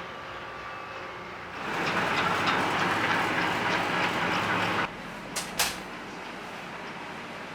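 Train running past: a loud rushing rumble that swells in about a second and a half in and cuts off abruptly just before five seconds. Two sharp clicks follow.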